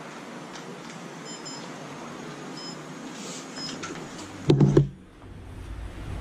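Power supply tester giving several short high beeps, the sign that the PC's power supply is delivering power. About four and a half seconds in comes a loud short clatter.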